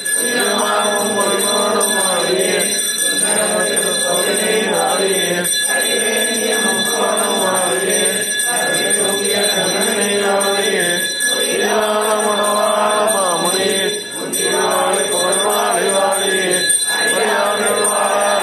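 A group of voices chanting Tamil Vaishnava hymn verses in unison, a continuous recitation broken by short pauses for breath. A faint steady high tone runs underneath.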